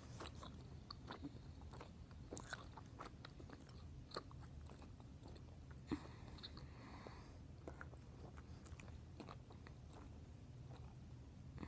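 Faint, irregular wet clicks and smacks of a mouth chewing a large wad of bubble gum, three pieces of Hubba Bubba chewed together, close to the microphone.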